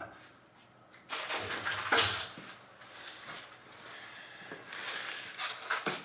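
Handling noises and crinkling plastic film as a plastic-wrapped insulated panel is picked up and moved about, in irregular rustling bursts, loudest about two seconds in and again near the end.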